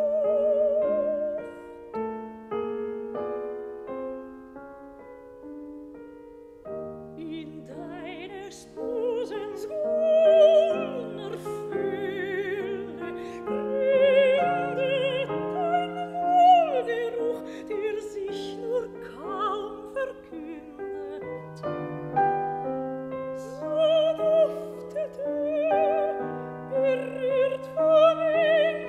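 Classical soprano singing a German art song with piano accompaniment, her held notes sung with wide vibrato. The voice drops out about two seconds in for a few seconds of piano alone, then returns.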